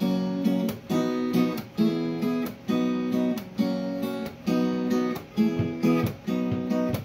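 Acoustic guitar strummed in a steady rhythm, the chord pattern repeating about once a second.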